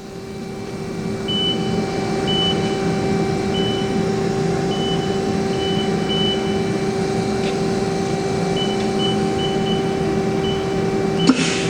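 Haas ST-15 CNC turning center running with a steady hum and a constant low tone, growing louder over the first couple of seconds. Short high beeps sound at irregular intervals throughout.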